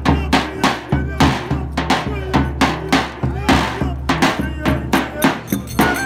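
Live Turkish Roma wedding dance music: a clarinet plays a wavering, ornamented melody over a steady beat of heavy drum strokes, about three a second.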